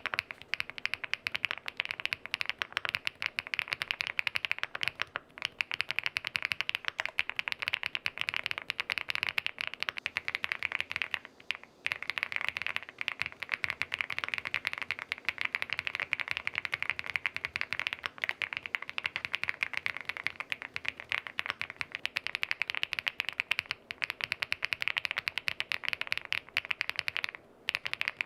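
Fast, continuous typing on an SPM Joyakdol 75 aluminium custom mechanical keyboard with an FR4 plate: a dense run of key clacks, first on SPM Violet switches, then on SPM Jelly switches. The typing breaks off briefly about twelve seconds in and again near the end.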